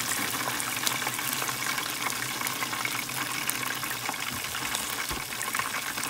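Hot oil in a deep fryer hissing and crackling steadily around a basket of breaded chicken pieces frying.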